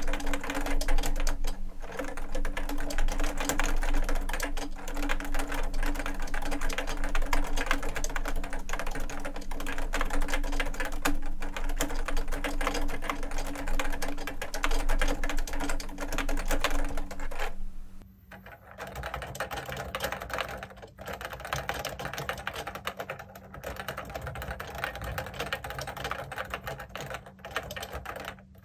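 Continuous fast typing on a JUKI Celavi FK212-JS keyboard with Topre Hipro switches and 25 g domes, a dense run of soft key clacks. About two-thirds of the way through it turns quieter and thinner as the recording switches from a Marantz MPM-2000U condenser microphone to an iPhone 12 Pro's microphone.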